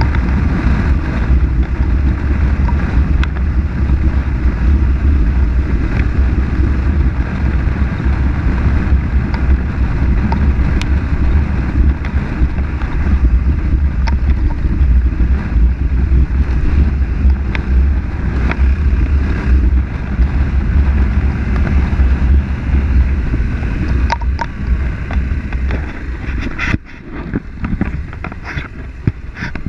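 Heavy wind buffeting on the microphone from a Yamaha Ténéré 700 motorcycle ridden at road speed, with the bike's running mixed into a steady low rumble. About 27 seconds in it turns quieter and more broken up.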